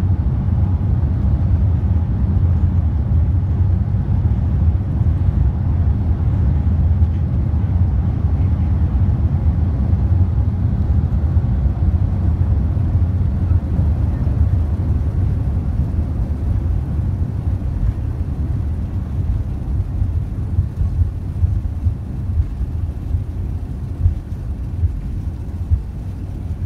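Steady low rumble inside an airliner's cabin as the jet rolls along the ground after landing, growing slowly quieter over the last third.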